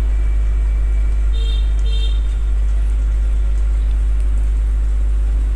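Steady noise of rainfall with a strong, even low rumble underneath. Two short high chirps come about a second and a half in.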